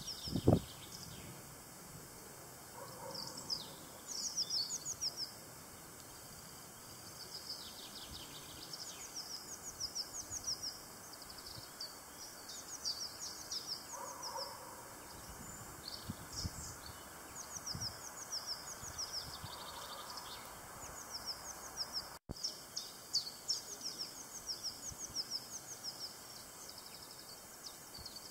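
Small birds singing in a thicket, a dense run of quick, high chirps repeating in bursts, with a few softer, lower calls now and then. A low thump about half a second in.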